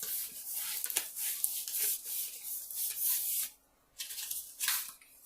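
Irregular rustling and crinkling of packaging as a diamond painting canvas and kit pieces are handled, with a brief pause a little past the middle.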